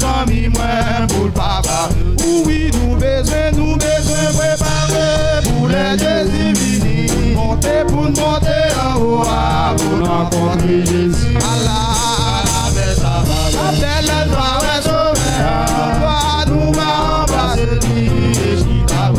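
Male gospel vocal group singing over a drum kit beat, with hand claps.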